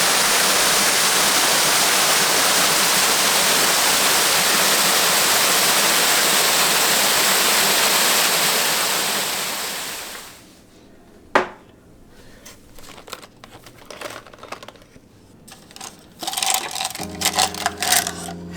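Waterfall rushing steadily, fading out about ten seconds in. After that, a sharp click and a scattering of small clicks and taps, with music starting near the end.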